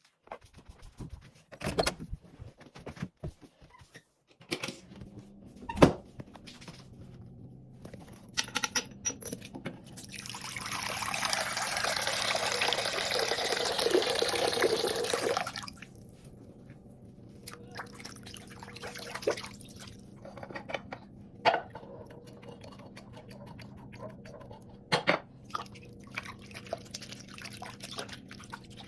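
A tap running into a sink for about five seconds midway, the loudest sound, amid scattered clicks, knocks and drips as small plastic fidget toys are handled and washed.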